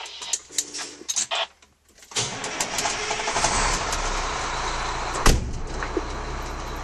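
A few clicks and knocks in the fire truck's cab, then at about two seconds in the truck's engine starts and runs on steadily at idle with a low hum. A single sharp knock about five seconds in.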